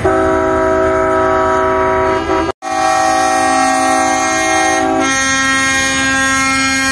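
Semi-truck air horns sounding a long, loud, steady chord of several notes, cut off briefly once about two and a half seconds in; the mix of notes shifts about five seconds in.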